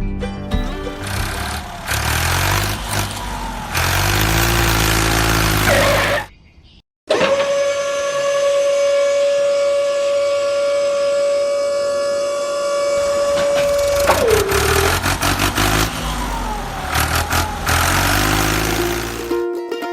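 A small engine running with its pitch rising and falling, cut off abruptly about six seconds in. After a short gap, a steady high-pitched whine holds for about seven seconds, then the rising and falling engine sound returns.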